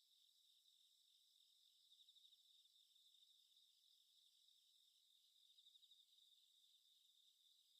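Faint chorus of crickets chirping at night: a steady, high, rapidly pulsing trill.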